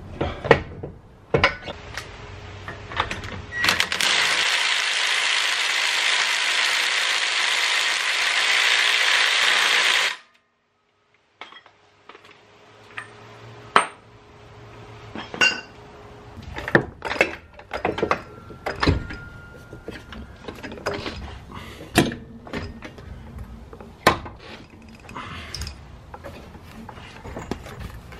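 Metal clinks, clicks and knocks of hand tools and drivetrain parts as a rear axle is fitted back into the car. A few seconds in, a loud, steady hiss lasts about six seconds and cuts off suddenly.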